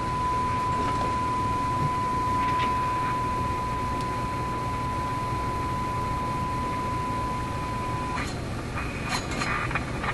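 Steady 1 kHz test tone from the signal generator's modulation, heard through the tube radio's speaker over a low hum. It cuts off about eight seconds in as the tuning dial is turned off the 600 kHz test signal, giving way to static with a few crackles.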